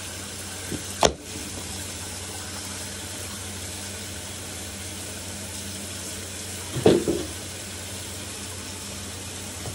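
Bathtub faucet running steadily, a continuous hiss of water. A sharp knock sounds about a second in, and a short louder sound comes near seven seconds.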